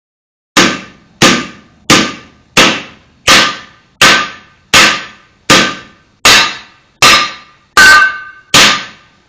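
Hammer striking metal about twelve times at a steady pace, roughly one blow every 0.7 seconds, each blow ringing briefly.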